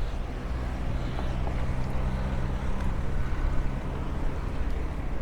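An engine running steadily with a low hum, over general outdoor noise.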